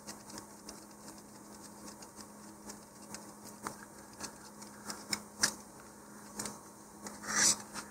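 Scattered small clicks and taps of hard plastic model-rocket parts being handled, the plastic screw retainer being fitted onto the fin can, with a brief rustle near the end. A faint steady hum runs underneath.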